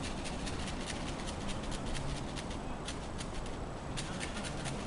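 Airsoft guns firing in the distance: a rapid, irregular patter of sharp clicks, several a second and bunched at times like short bursts, over steady background rumble.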